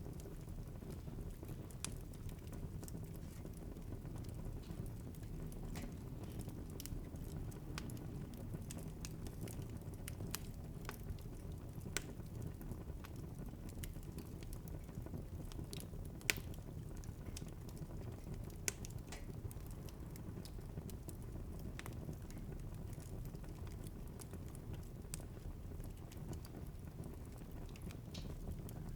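Wood fire burning in a fireplace, a steady low rumble with irregular sharp crackles and pops, a few louder snaps among them.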